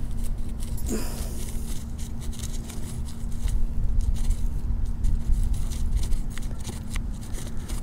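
Scattered scrapes and clicks of digging out a metal-detector target, over a steady low hum from the Minelab Manticore metal detector and a low rumble of wind on the microphone.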